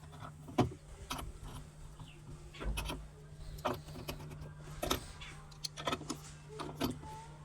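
Scattered light metallic clicks and knocks of tools and copper pipe parts being handled during soldering work, over a steady low hum.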